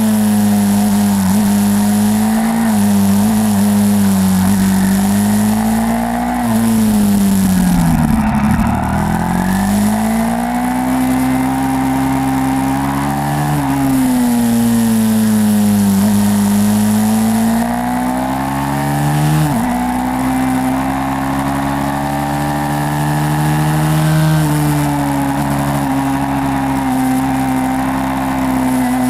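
YCF 150 SM pit bike's small single-cylinder four-stroke engine running hard on track, its pitch climbing and falling again and again as the rider accelerates and backs off. About eight seconds in it drops low before climbing again, and near twenty seconds the pitch falls suddenly.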